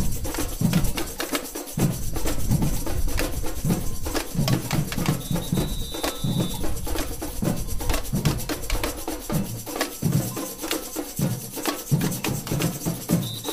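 Samba bateria drumming while it marches: deep bass drums beat under dense rattling snare and small hand-drum and wood-block-like strokes. A held high tone sounds for about a second and a half, about five seconds in.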